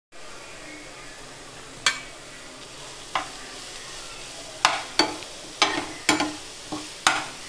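Onions, tomatoes and grated carrot sizzling in ghee in a nonstick frying pan, with a low steady sizzle. A metal spatula stirs the vegetables and knocks and scrapes against the pan, about eight sharp knocks, most of them in the second half.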